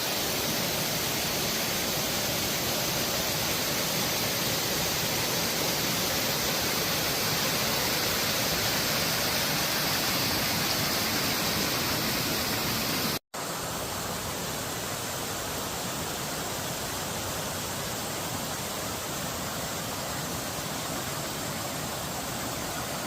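Rushing whitewater of a mountain creek pouring over cascades and boulders, a steady hiss of falling water. It cuts out for an instant about thirteen seconds in, then goes on a little quieter.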